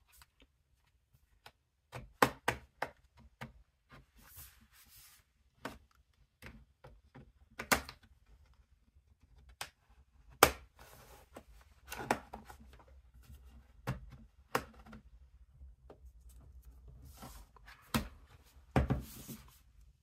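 Plastic pry tool working around the seam of a Dell Precision 3470 laptop's bottom cover: irregular sharp clicks and snaps as the cover's clips come loose, with short stretches of scraping along the edge.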